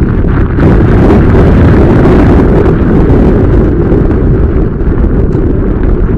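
Loud wind rush buffeting the microphone of a helmet-mounted camera on a bicycle descending fast down a paved street, growing fuller and hissier about half a second in.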